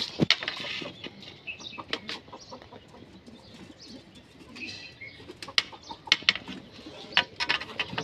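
Pigeons and other birds calling, with wing flaps and several sharp knocks scattered through.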